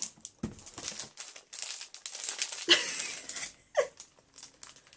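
Packaging crinkling and rustling in irregular bursts as a newly unboxed item is handled and unwrapped.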